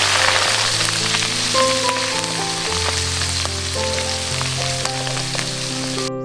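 Food sizzling in a hot pan, a dense crackling hiss that slowly fades, with background music under it; the sizzling cuts off suddenly near the end, leaving only the music.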